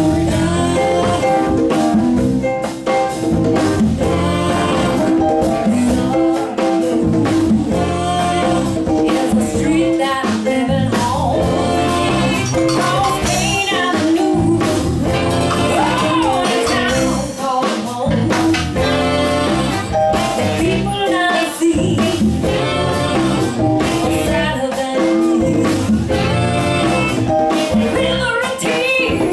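Live blues band playing: saxophones, electric bass, keyboards, drum kit and congas, with vocals over the top. The music is loud and continuous with a steady beat.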